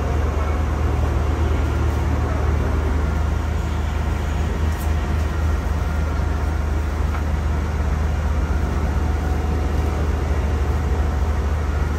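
Crane's engine running steadily, a low, even rumble.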